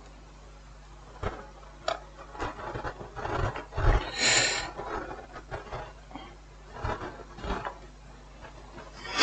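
Small tools and electronic parts being handled on a repair bench: scattered light clicks and taps with some scraping and rubbing, and a brief hiss about four seconds in.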